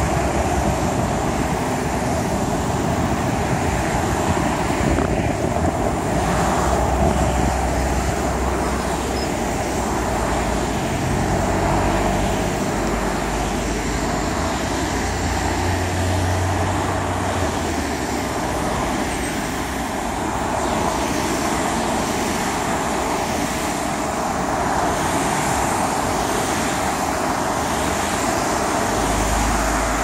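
Steady road traffic noise from a line of cars passing on a two-lane highway, tyres and engines, with a low rumble that swells and fades as vehicles go by.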